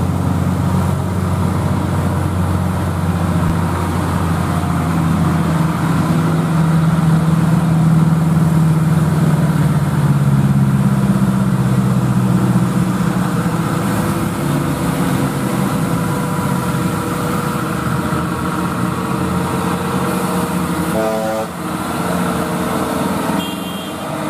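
Diesel engine of a heavily loaded Fuso truck labouring slowly up a steep hill. Its note rises about five seconds in and is loudest as it passes a few seconds later, with motorcycles and other traffic going by.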